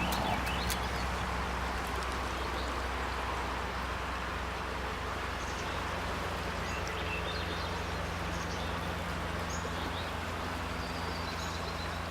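Steady rush of a flowing river, with a few faint bird chirps scattered through it.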